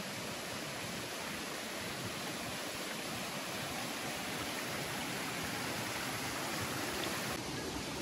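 Steady rush of running water.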